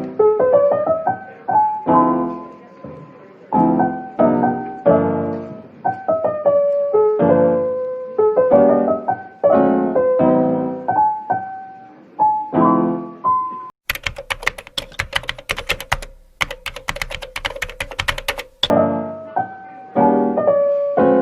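Gentle solo piano music, note after note. For about five seconds past the middle, a fast run of sharp clicks plays over it, with a short break partway through.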